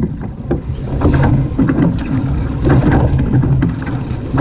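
Surf boat being rowed hard off the start: oar strokes and water churning against the hull, surging about every second and a half, under heavy wind rumble on the microphone.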